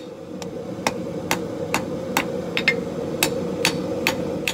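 Hand hammer striking a red-hot 1084 steel bar on an anvil, about two even blows a second, drawing out a knife blade's point. A steady hum runs underneath.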